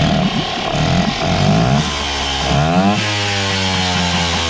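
Small outboard motor running with its lower unit in a barrel of water; its pitch dips and then climbs quickly as the throttle is opened, a little over halfway through.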